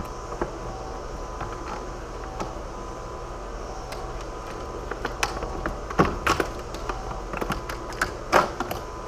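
Jeep JK stock battery tray being shimmied and worked up out of the engine bay: scattered clicks, scrapes and knocks, with a few sharper knocks about six and eight seconds in, over a steady low hum.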